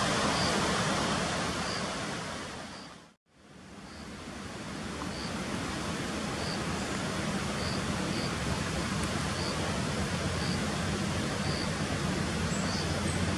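Steady outdoor background hiss with a faint high chirp repeating about once a second. The sound fades out about three seconds in, drops to silence for a moment, then fades back in.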